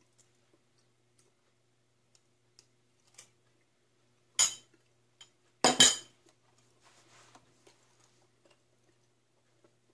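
Metal fork clinking against a ceramic bowl while eating. A sharp clink comes about four and a half seconds in, and a louder double clatter a second later as the bowl and fork are set down.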